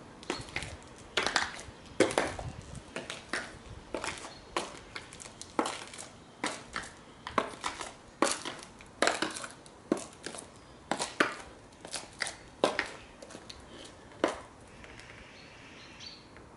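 High-heeled stiletto shoes clicking on stone paving slabs in a steady walk, about two sharp steps a second. The steps stop about two seconds before the end as she comes to a standstill.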